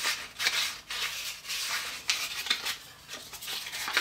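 Hand sanding with 220-grit sandpaper around the edge of an angled hole drilled in a pine board, in repeated irregular strokes, taking off the sharp drilled edge. The strokes ease off briefly about three seconds in, then resume.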